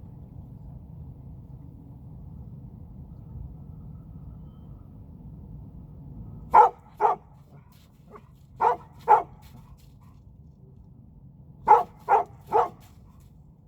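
A dog barking: about seven short, sharp barks in quick pairs and threes, starting about halfway through, over a low steady rumble that drops away as the barking begins.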